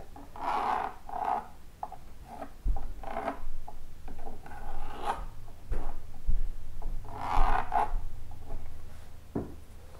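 A pencil tracing around a thin wooden spatula template on a wooden board: short, irregular scratching and rubbing strokes of graphite and wood on wood. A single sharp tap comes near the end.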